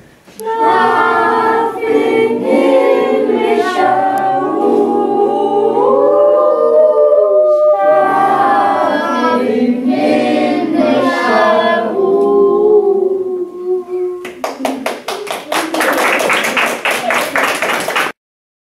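A group of children singing a song together; about fourteen seconds in the song ends and is followed by a few seconds of applause that cuts off suddenly.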